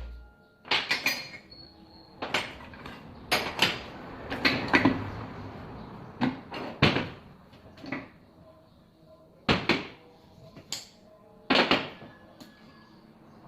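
Tools and gearbox parts being handled: irregular sharp knocks and clatters, about ten over the stretch, some in quick pairs.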